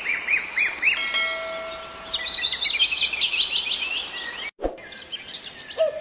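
Birds chirping and singing: a quick run of repeated chirps, about four a second, then a busier song of fast high notes. A bell-like ding rings out about a second in. The sound drops out briefly, and lower calls begin near the end.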